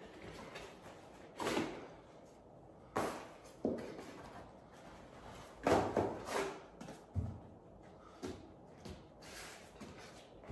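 Vinyl wallpaper being slid and pressed by hand against the wall: a handful of short, irregular rustling swipes, the loudest a little past the middle.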